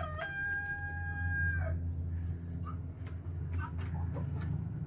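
A rooster crowing: one long held call that drops off about a second and a half in. It is followed by a few faint short clucks over a steady low hum.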